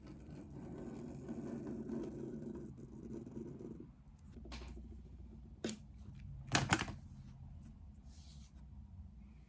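Faint room sounds: a low murmur for the first few seconds, then a few short clicks or knocks, the loudest a quick pair about two-thirds of the way in.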